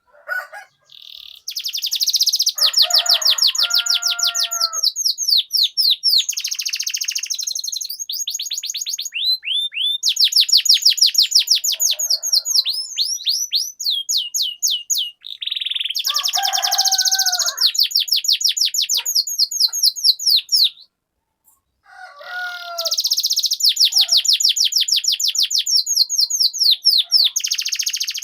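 Domestic canary singing long rolling trills of rapidly repeated high notes, with a few lower, deeper phrases mixed in. The song breaks off briefly twice.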